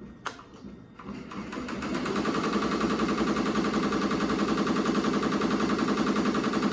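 Ricoma MT-2002-8S multi-needle embroidery machine stitching. After a few clicks, it starts up about a second in, speeds up, and then runs at a steady rapid rhythmic clatter as the needle sews the lettering into the terry towel.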